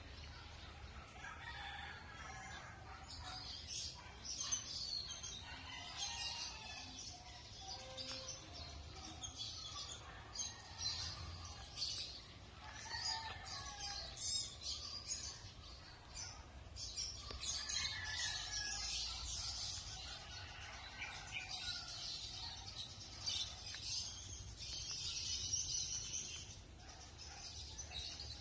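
A rooster crowing several times, with small birds chirping throughout.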